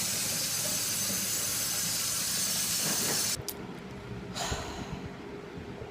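Kitchen faucet running into the sink with a steady hiss, shut off abruptly about three and a half seconds in.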